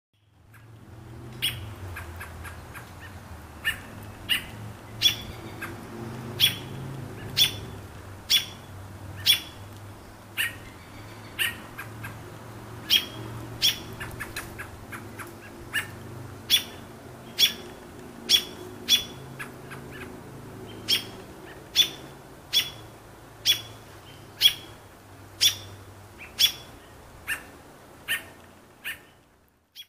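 A robin giving sharp, short alarm calls about once a second, scolding a cat.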